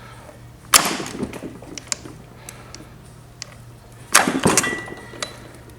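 Metallic clunks and clicks from a Yamaha RD350's reassembled gearbox being shifted by hand on the bench, one gear to the next, to check that the gears engage. There are two loud clanks, about a second in and about four seconds in, the second followed by more knocks and a brief ring, with lighter clicks between.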